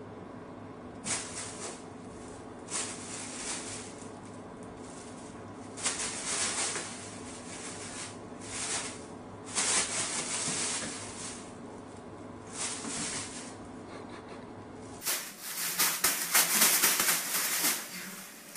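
Thin plastic bag crinkling and rustling in short bursts as a cat moves in and paws at it, over a steady low hum. About fifteen seconds in, louder, near-continuous crinkling of a plastic bag as cats tussle in it.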